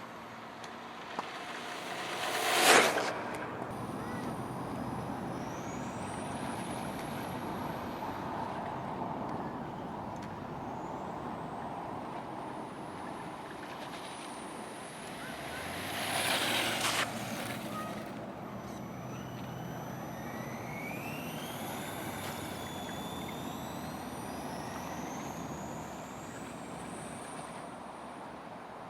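HPI Sprint 2 Flux RC car's brushless 5600Kv motor whining high, the pitch rising again and again as it accelerates. Two loud, brief rushes of sound, about three seconds in and around sixteen seconds in, as the car passes close.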